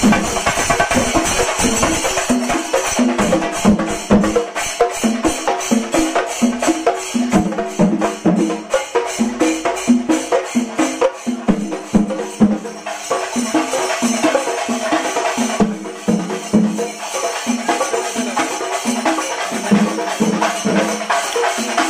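Kerala chenda melam: a troupe of chenda drums beaten with sticks, with cymbals clashing over them, playing a fast, steady beat.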